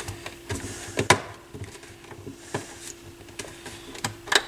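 Scattered light clicks and knocks from hands handling the plastic casing of a Dual CS 530 turntable, the sharpest about a second in and near the end, over a faint steady hum.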